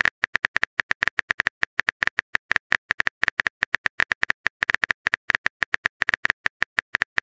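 Keyboard typing sound effect of a chat-story app: rapid, irregular clicks, several a second, as a text message is typed out.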